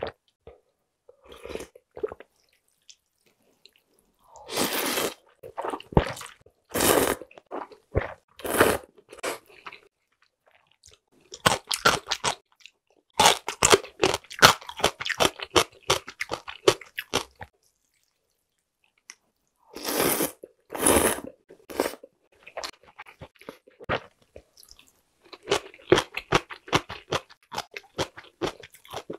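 Close-miked eating sounds: several slurps of thin noodles in broth, a few seconds apart, and stretches of wet chewing with quick clicks of the mouth.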